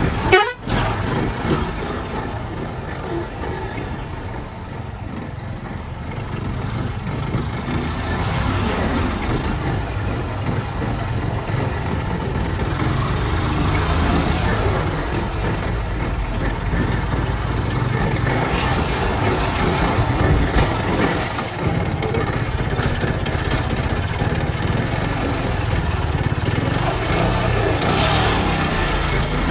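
Road traffic in a slow jam: vehicle engines and trucks running, heard from a vehicle moving with the traffic, with a few short sharp sounds about twenty seconds in.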